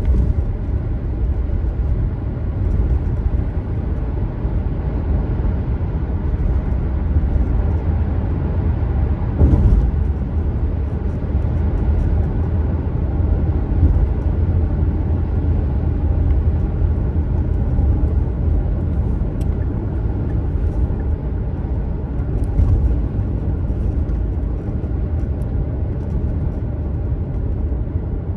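Steady low rumble of a car on the move, tyre and engine noise on the road, with one brief thump about a third of the way in.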